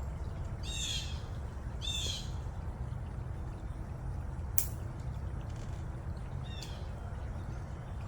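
A bird giving harsh calls outdoors, three of them: one about a second in, another a second later, and one near the end. A single sharp click about four and a half seconds in, over a steady low rumble.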